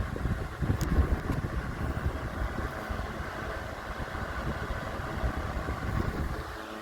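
Generic 10-inch three-speed box fan running on high speed: a steady whir and hum, with an uneven low rumble from its airflow buffeting the microphone that drops away near the end.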